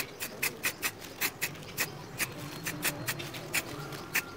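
Aerosol spray-paint can in use, making a quick, irregular series of short, sharp sounds, about three a second.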